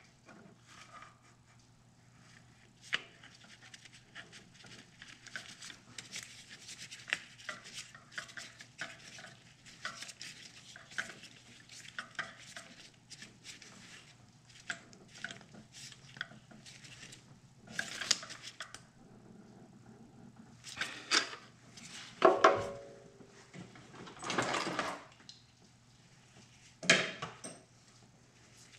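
Hand ratchet with socket extension clicking as a new spark plug is run back into the cylinder head, with small metal tool clinks and a few louder clanks, the loudest near the end, one of them ringing briefly.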